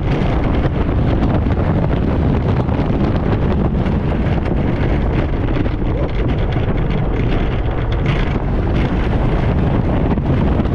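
Heavy wind rushing over the microphone on the front of a speeding Lightning Rod wooden roller coaster train, over the steady rumble and rapid clatter of its wheels on the track.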